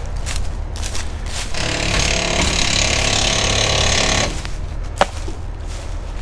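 A low engine rumble, with a loud rasping mechanical noise, like a power tool or air tool, for about three seconds in the middle and a single sharp knock near the end.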